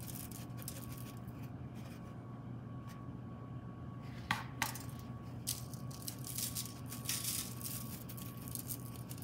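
Kitchen clatter of metal and dishware being handled: light clinks and ticks, with two sharp metallic clinks in quick succession about four seconds in, over a steady low hum.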